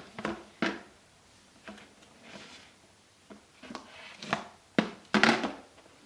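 Lid and blocks of a toy construction-set bucket knocking and clattering as a toddler handles them: a run of irregular sharp knocks, several close together about five seconds in.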